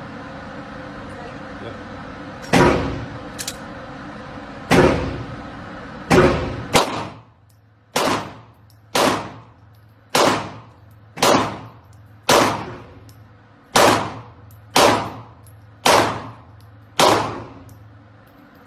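Semi-automatic pistol fired about a dozen times, slowly and deliberately, at first with uneven gaps and then about one shot a second. Each report is followed by a short echo off the walls of an indoor range.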